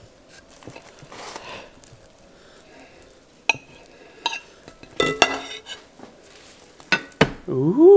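Kitchen knife cutting through empanadas on a ceramic plate: scattered clicks and scrapes of the blade on the plate, the busiest run about five seconds in and two more near the end.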